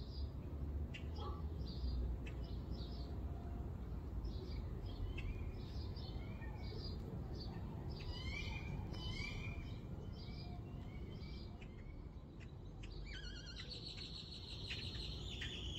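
Songbirds calling: repeated short, high chirps, some with quick gliding notes. About thirteen seconds in, a higher, rapid trill takes over. A low steady rumble runs underneath.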